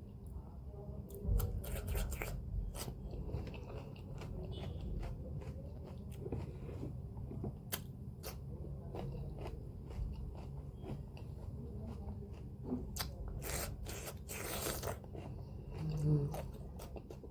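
A person chewing a mouthful of noodles, with many small wet mouth clicks and smacks, and a louder stretch of noise a little before the end.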